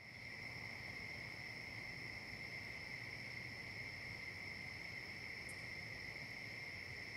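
A chorus of crickets trilling steadily and faintly, with one brief, higher chirp about five and a half seconds in.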